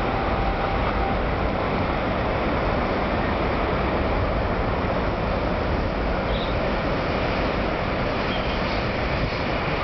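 Steady road traffic noise from a busy city street, with cars, taxis and buses passing.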